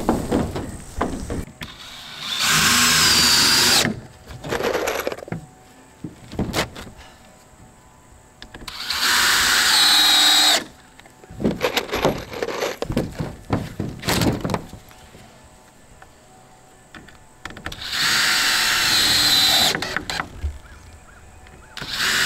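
Cordless power driver running screws into a 2x4 roof purlin, three runs of a second or two each with a high whine, and a fourth starting at the very end. Between the runs come sharp knocks and clatter of handling.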